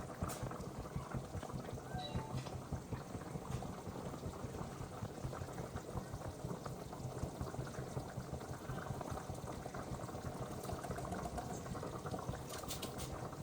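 Chicken curry bubbling steadily at a boil in a cooking pot. A few sharp clicks come near the end.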